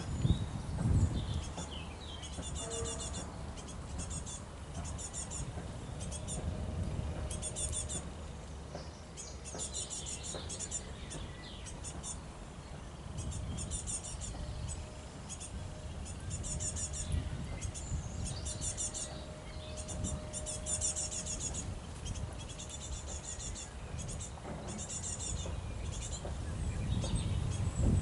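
Short, high-pitched pulsed chirping trills, each about a second long, repeating every second or two, over a low rumble.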